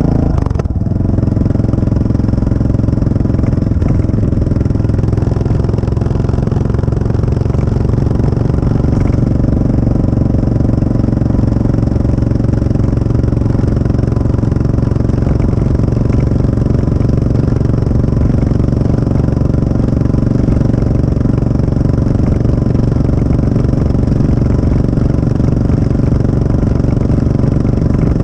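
CCM DS 644's big single-cylinder engine running steadily, its exhaust heard close up, with a brief change in the note just after the start.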